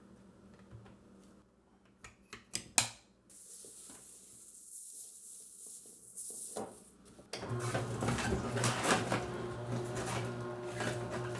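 A few sharp clicks and knocks, then about seven seconds in the Kuvings Auto 10 Plus slow juicer starts: its motor hums steadily while the auger and stainless steel hopper blade crunch through whole produce.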